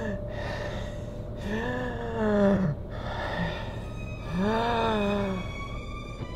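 A man making two long wordless moaning sounds, each rising and then falling in pitch, over a faint steady hum.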